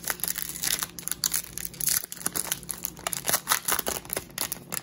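Foil wrapper of an Upper Deck hockey card pack crinkling and tearing as it is ripped open by hand and the cards are slid out: a dense run of irregular crackles.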